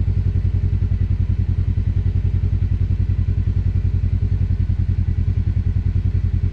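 Vehicle engine running steadily at low revs, with a fast, even pulsing beat.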